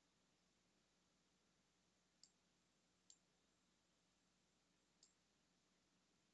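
Near silence with three faint single clicks, about two, three and five seconds in: computer mouse clicks.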